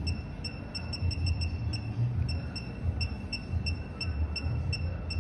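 Rapid, unevenly spaced short high electronic beeps, about four a second, over a low rumble.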